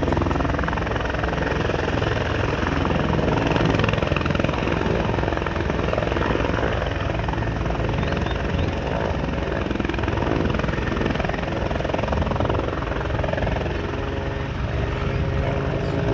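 Helicopter hovering low over a lake, its rotor and engine running steadily while it dips a water bucket on a line to fill it.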